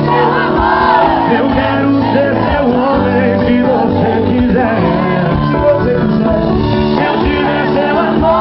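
Music with a group of voices singing along.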